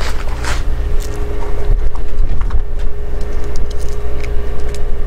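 A few faint small clicks and rattles of lead shot pellets and a plastic shotshell being handled while the shell is filled by hand, over a steady low hum.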